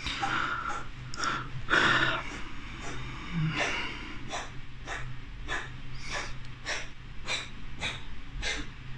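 A pet dog breathing in quick, rhythmic snorts, about two to three a second. The owner puts these fits down to an illness and mild stress.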